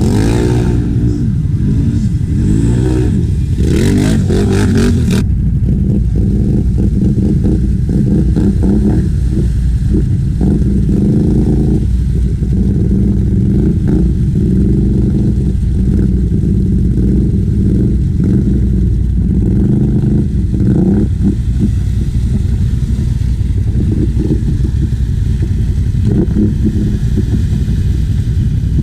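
ATV engine running hard through mud, revving up and down several times in the first five seconds, then pulling steadily with small changes in throttle.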